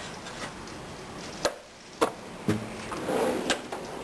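Drawers of a steel rolling tool chest being shut and pulled open, with several sharp clacks and the rattle of tools shifting inside.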